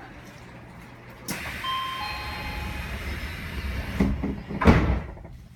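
Odakyu 2000 series commuter train's sliding passenger doors closing: a sudden air hiss about a second in with a few brief ringing tones over it, then two thumps as the doors shut near the end, the second one the loudest.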